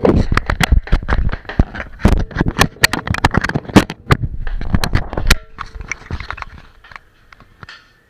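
Handling noise right at a small action camera's microphone: a dense run of loud knocks, clicks and scraping for about five seconds, then fading to scattered faint taps.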